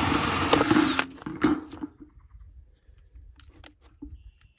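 Cordless drill boring through the bottom of a plastic flower pot, its motor running steadily with a high whine, then stopping about a second in. A few light clicks and knocks follow.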